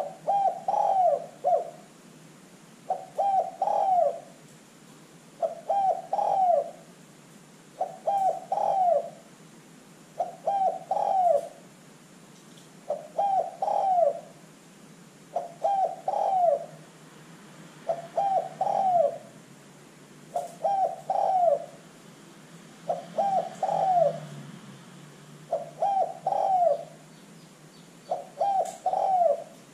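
Spotted dove cooing: a steady series of about a dozen phrases, one every two and a half seconds. Each phrase is a quick run of coos ending in a longer falling note.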